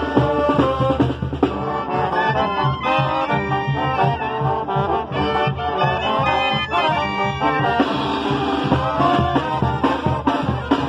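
Mexican brass banda playing a pasodoble: trombones and trumpets carrying the melody over a sousaphone bass and a steady drum beat. The trombones sound close and loud.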